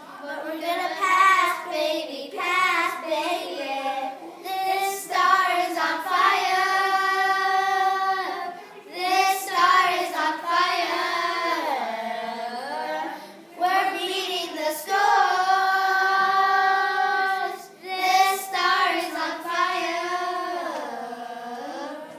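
Four children singing a song together, with several long held notes and short breaks between phrases.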